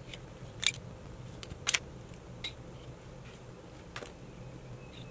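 Nail tip cutter snipping through clear plastic false nail tips to shorten them: several sharp clicks spread over the few seconds, the loudest a little under a second in and a double snip near two seconds.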